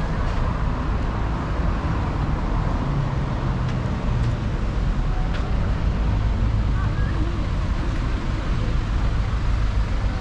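Steady city road traffic: a continuous rumble of cars passing on a multi-lane street.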